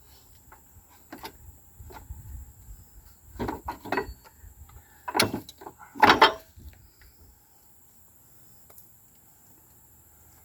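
Scattered knocks and clunks as the rear end assembly is worked loose and pulled out of a Honda Rancher ATV, the two loudest about five and six seconds in, then quiet handling.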